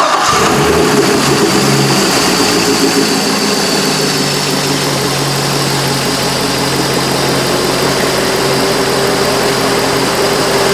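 C6 Corvette V8 idling steadily just after starting, heard close up in the engine bay. Its harmonic balancer is wobbling but making no chirp.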